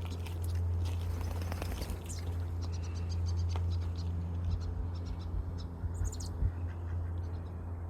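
Small birds giving many short, high chirps in quick runs, over a steady low hum.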